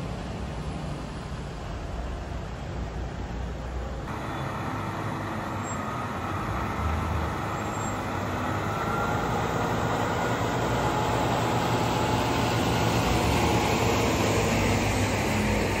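Diesel engine of a heavy-haul tractor unit running as it tows a multi-axle low-loader carrying a tram section, with tyre and road noise. The sound changes abruptly about four seconds in, then grows steadily louder as the truck comes close.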